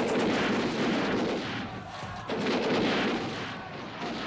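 Film battle soundtrack of massed musket volleys, a dense crackle of gunfire that comes in two long waves, the second starting a little after two seconds in.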